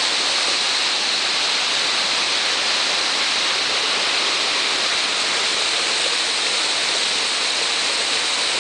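Mountain waterfall rushing close by: a steady, even hiss of falling water that does not change.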